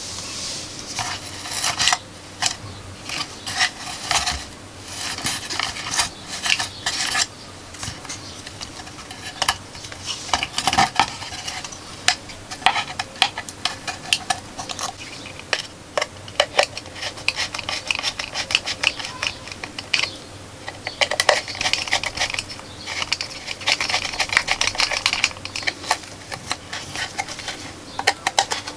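Irregular clicks, taps and scraping from hand-assembling a small wooden speaker box: polyester stuffing, a speaker's metal mounting plate and small screws being handled and fitted. The clattering is densest about three quarters of the way through.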